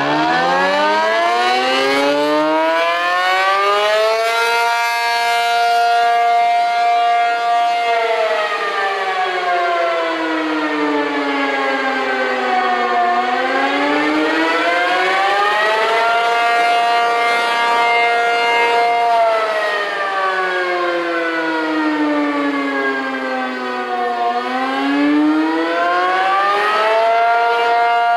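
ACA P-50 dual-tone warning siren sounding the Attack signal: it winds up from quiet, holds its two-note chord, then slowly falls and rises in pitch again, about once every 11 seconds.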